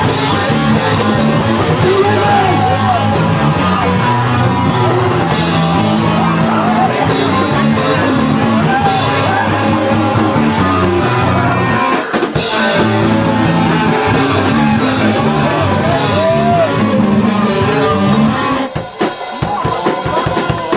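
Live punk rock band playing loud in a garage: electric guitar, bass and drum kit with a singer's vocals. The music drops off near the end.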